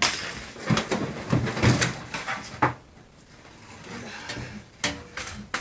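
Irregular knocks, clanks and rattles of a refrigerator's sheet-metal cabinet being worked on by hand, with about half a dozen sharper strikes.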